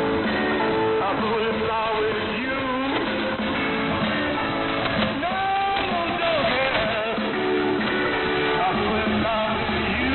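A song with singing and guitar, received over AM shortwave radio: thin and band-limited, with a haze of noise under it.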